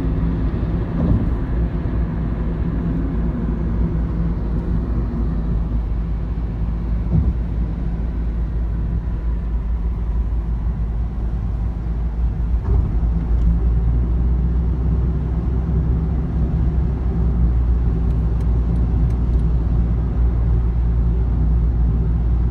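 Steady low rumble of a car driving at road speed, heard inside the cabin: tyre and engine noise, getting slightly louder in the second half.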